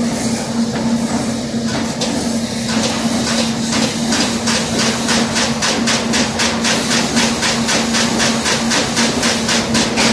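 Flow wrapping machine running, with a steady hum throughout. About three seconds in, a fast, even clacking starts, about four a second, the machine's repeating cycle.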